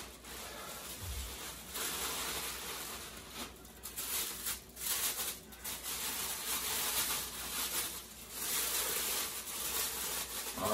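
Plastic bag and foam packing wrap rustling and crinkling as they are pulled off a statue piece, in uneven bursts with short pauses.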